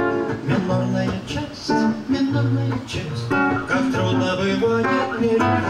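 Acoustic guitar played live, a phrase of picked notes and chords in a bard song.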